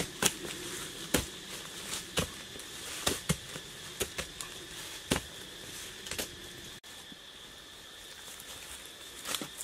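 Hand-held digging sticks striking hard forest soil, about one dull knock a second, while post holes are dug. A steady high insect drone runs underneath. The knocks stop about seven seconds in, leaving the drone and a few light scrapes of soil being scooped.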